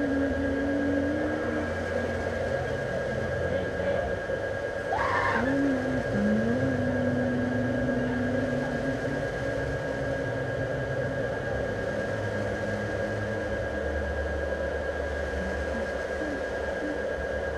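A steady droning hum with a constant thin high whine. Over it come a few low held tones that bend in pitch, and a short rising squeal about five seconds in.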